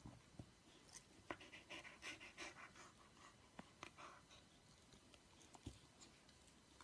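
Faint breathing of a dog and soft rustling of fingers scratching its fur, with a few light clicks.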